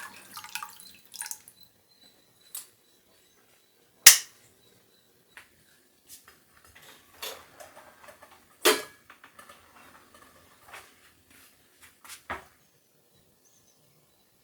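Kitchen items being handled: scattered knocks and clinks, the sharpest about four seconds in, another near nine seconds and a last one near twelve seconds.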